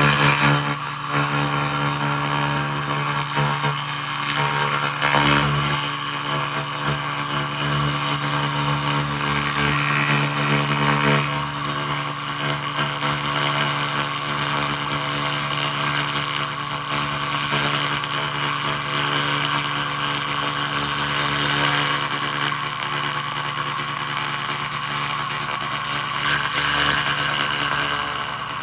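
SFX 2000 W laser rust remover in use: a steady hiss as the beam works over the rust, above a constant machine hum that stops shortly before the end.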